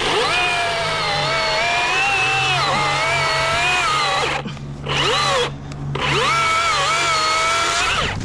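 Chainsaw cutting through mango wood. Its high whine sags in pitch as the chain loads up in the cut and recovers, and it stops briefly twice about halfway through.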